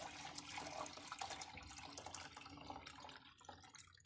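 Milk poured in a steady stream from a pot into a stainless steel stockpot of hot piloncillo-and-cinnamon water, splashing and gurgling; the pour slowly tapers off toward the end.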